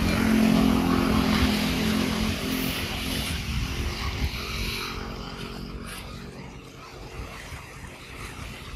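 A distant engine drones at a steady pitch, loudest at first, then fades away and is gone by about six seconds in.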